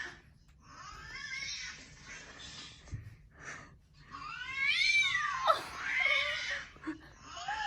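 Cat meowing and yowling in a series of long, drawn-out calls, each rising and then falling in pitch, one after another with short gaps between them.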